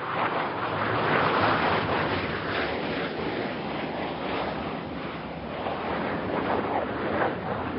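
Jet aircraft roar added as a sound effect: a loud, steady rushing noise.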